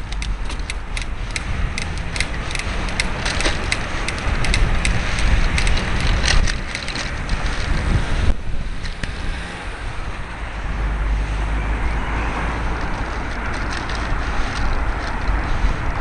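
Wind buffeting the microphone of a cyclist's helmet camera while riding, over a low road rumble. A run of quick clicks and rattles is dense in the first half, thins out, then picks up again near the end.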